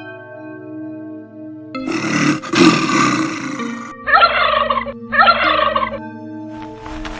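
Horror sound-effect soundscape: a sustained droning chord underneath, a harsh noisy burst about two seconds in, then two short animal-like calls in quick succession.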